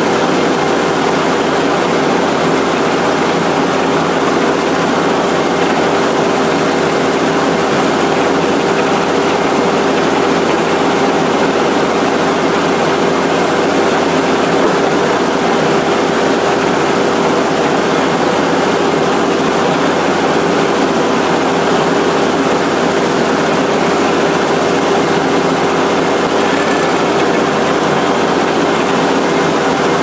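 Frick 00 circular sawmill running idle between cuts: the blade and its drive spin freely with a steady, unchanging hum and no wood in the cut.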